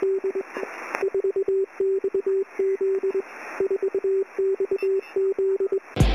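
Morse code beeps: a single steady tone keyed on and off in short and long pulses, over faint clicks and hiss. A music track with a thumping beat cuts in at the very end.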